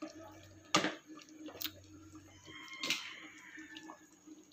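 A pot of caldereta stew simmering in a stainless steel pot, faintly bubbling with a few sharp pops.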